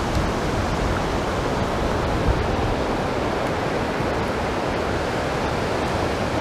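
Strong wind: a steady rushing noise, with a low fluttering rumble where it buffets the microphone.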